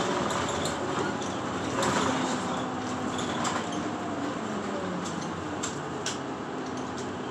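Inside a moving route bus: steady engine and road noise with a low hum, broken by a few short clicks and rattles.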